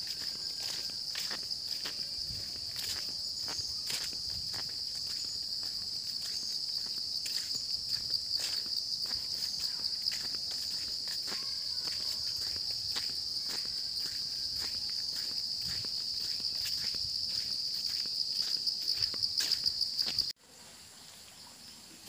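Steady high-pitched drone of insects calling in the forest, with footsteps on a dirt path. The drone and the steps cut off suddenly near the end.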